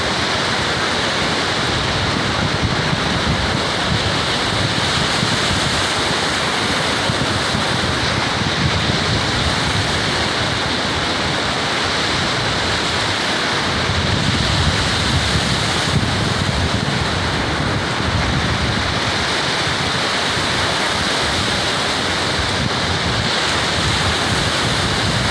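Ocean surf rushing steadily, with wind buffeting the microphone in low rumbling gusts.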